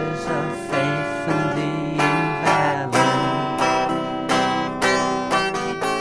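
Instrumental passage of a late-1960s song played from a vinyl record: acoustic guitar picking and strumming a steady run of plucked notes.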